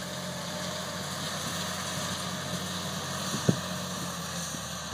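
Case IH 9380 Quadtrac tractor's diesel engine running steadily while pulling a wide field cultivator, with one brief knock about three and a half seconds in.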